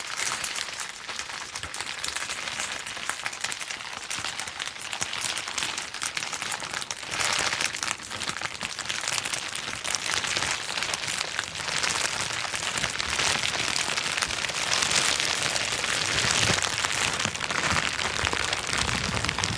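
Plastic bubble wrap being popped: a dense, rapid run of small pops and crackles, thicker and louder from about seven seconds in.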